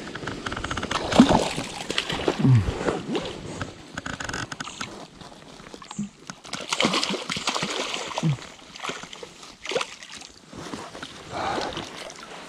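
Splashing water from a hooked fish and rustling bankside grass and reeds as a landing net is worked in the shallows, with irregular knocks and scuffs from the handling.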